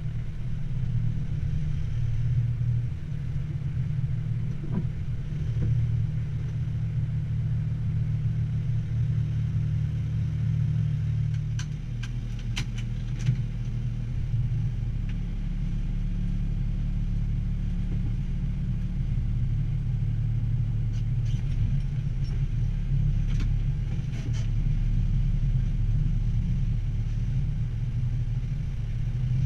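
Military truck's diesel engine running at low speed, heard from inside the cab as a steady low drone whose note drops lower about twelve seconds in. A few sharp clicks come about twelve seconds in and again some ten seconds later.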